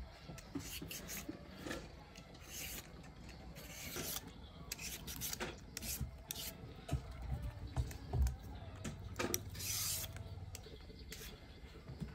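Handheld Y-peeler rasping the skin off sweet potatoes in quick, irregular strokes.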